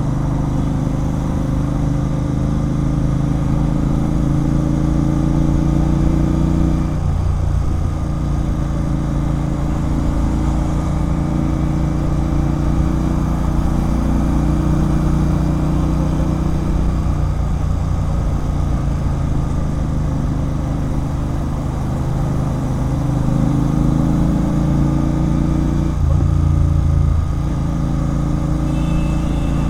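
Royal Enfield Continental GT 650's parallel-twin engine running through an aftermarket Red Rooster Performance (RRP) exhaust while riding. Its pitch climbs slowly, drops about seven seconds in, and drops again a few seconds before the end as the throttle changes.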